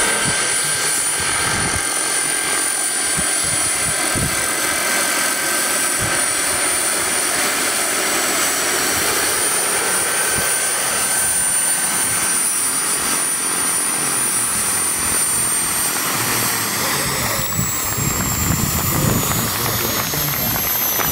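Radio-controlled scale model helicopter flying: rotor noise with a high, steady whine from its drive, the whine gliding slowly down in pitch over the second half.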